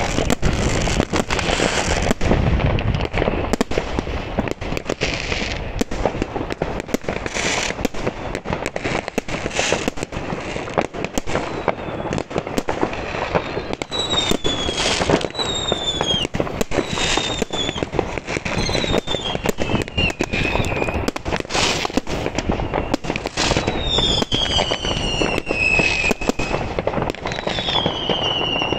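New Year's fireworks and firecrackers going off all over a town: a continuous stream of bangs and crackles. From about halfway through, several whistles fall in pitch.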